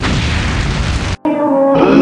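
A loud blast of noise, like a boom or static burst, that cuts off abruptly a little over a second in, followed at once by a held electric-guitar-like note.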